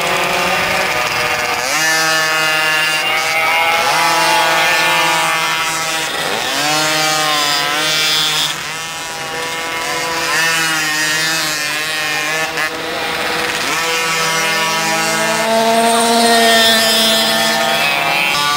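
Small two-stroke pocketbike engines buzzing around a race circuit, several at once. Their pitch keeps rising under throttle and dropping off into the corners.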